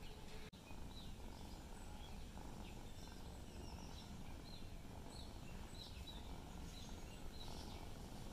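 Faint outdoor background noise with small birds chirping in short, repeated calls, with a brief drop-out about half a second in.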